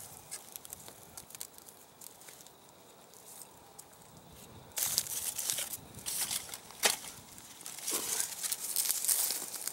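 Dry cattail stalks and crusted snow crackling and crunching as someone pushes through a frozen marsh. Faint for the first half, then louder and busier from about halfway, with sharp snaps.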